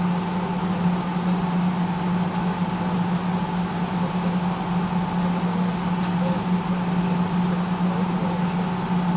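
Steady electric hum of a tram, a low drone with a fainter steady higher tone over a hiss, and a single short click about six seconds in.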